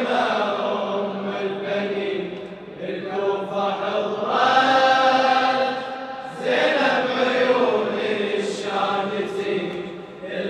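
A congregation of men chanting a Shia mourning lament (latmiya) refrain together, in about three long drawn-out phrases.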